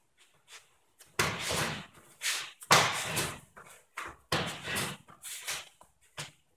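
A rapid series of slaps and thuds from a Wing Chun pak sau drill, as forearms and hands slap and strike against each other and the body. There are about ten loud hits, starting about a second in and going on until near the end, some followed by a brief rustle of clothing.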